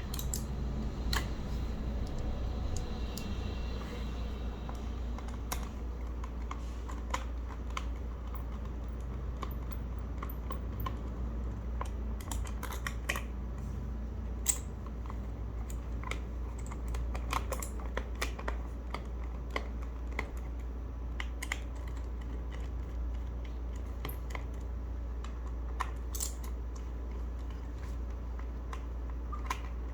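Scattered, irregular plastic clicks and taps from a Gamakay K61 mechanical keyboard being handled and taken apart, over a steady low hum.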